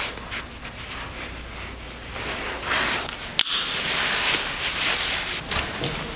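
Clothing and shoelaces rustling: laces pulled tight, then a nylon puffer jacket swishing and rubbing as the arms move, louder in the second half. There is one sharp click about three and a half seconds in.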